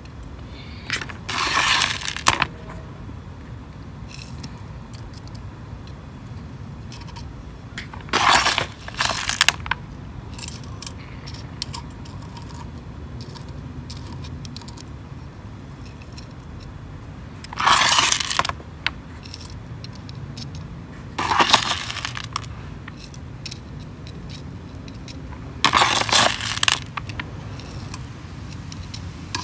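Small rocks scooped with a little hand shovel and poured into a planter, clattering and scraping in five short bursts a few seconds apart.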